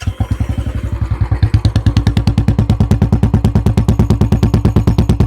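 Royal Enfield Classic 350 single-cylinder engine idling through an aftermarket long Punjab silencer on the stock bend pipe: a loud, steady, even run of exhaust thumps.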